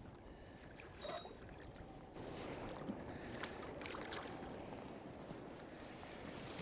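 Water lapping and sloshing against a kayak hull, growing louder about two seconds in, with scattered small knocks and clicks and a short high squeak about a second in.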